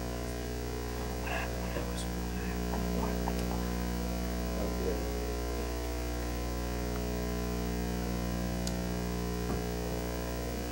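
Steady electrical buzz, a stack of unchanging hum tones with faint, garbled talk beneath it: a faulty audio feed that drowns out the speaker.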